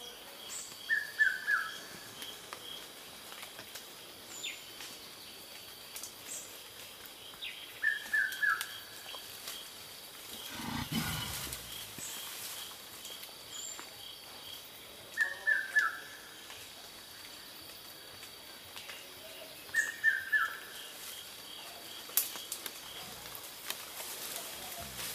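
Forest birds calling: a quick falling run of three or four notes, repeated four times several seconds apart, over a faint steady chirping and a few short high chirps.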